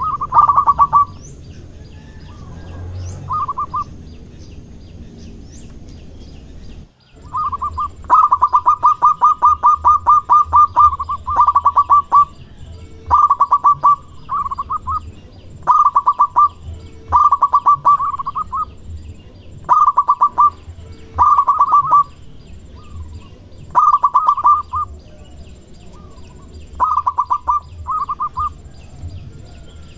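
Zebra dove (perkutut) cooing: repeated bouts of rapid, evenly pulsed notes, most about a second long and one running about three seconds, with short pauses between them.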